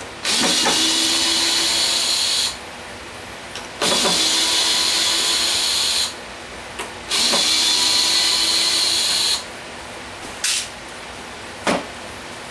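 Compact cordless drill/driver running into the wooden strips of a board, three runs of about two seconds each at a steady pitch with short pauses between, then two brief short sounds near the end.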